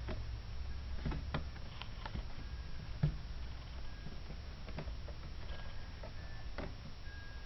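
A cat's paws and claws tapping and scratching on a carpeted cat tree: scattered light clicks and soft knocks, one louder knock about three seconds in, with a few faint short squeaks from about halfway on.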